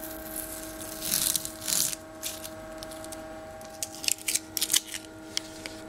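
Masking tape being peeled off car paintwork: two short tearing pulls about a second in, then a quick run of small clicks and crinkles as the tape is handled.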